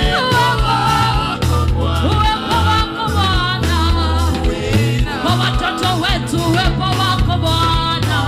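Live gospel worship music: a vocalist sings a wavering, ornamented melody over bass and drums with a steady beat.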